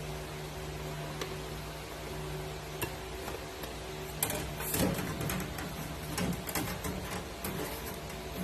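Sheet-metal rock deflector panel being handled and worked into place, giving a run of light knocks, clicks and rattles from about halfway on, over a steady low hum that fades out about halfway.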